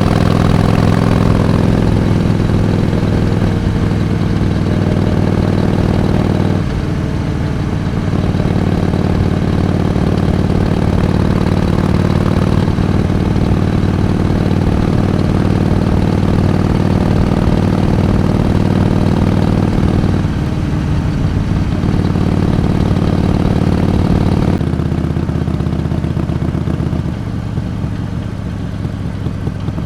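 Harley-Davidson Iron 883's air-cooled 883 cc V-twin engine running steadily under way, its note dropping off briefly about seven seconds in, again around twenty seconds, and for a longer stretch near the end before the pitch climbs again as throttle comes back on.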